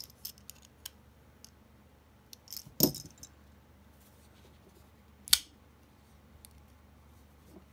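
Small metallic clicks and taps of a Steel Will Tenet folding knife being handled and checked for blade play after its pivot screw was backed off, with a louder knock near three seconds in and a sharp click a little after five seconds.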